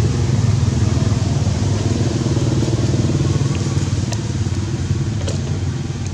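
An engine running steadily at an even pitch, with a couple of faint clicks about four and five seconds in.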